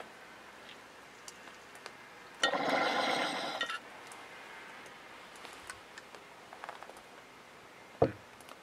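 A long breathy exhale after a bong hit, lasting about a second, a couple of seconds in. Near the end a single sharp knock as the glass bong is set down.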